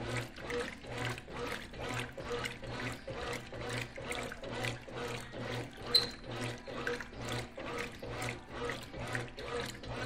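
Brastemp Clean top-load washing machine agitating a load of duvets: water sloshing and churning in a steady rhythm of about two to three surges a second, over a low motor hum that pulses on and off. A single sharp click about six seconds in.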